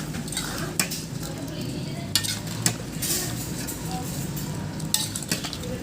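A utensil stirring food in a cooking pot, with a few sharp scrapes and knocks against the pot over a steady sizzle.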